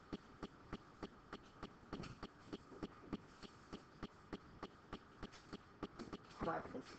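Faint, short taps of a stylus on a pen-input screen while a word is handwritten, coming evenly at about three a second.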